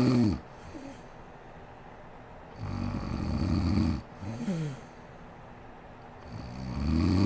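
A sleeping woman snoring, loud rattling snores of over a second each, about every four seconds. Each snore is followed by a short breathy sound that falls in pitch.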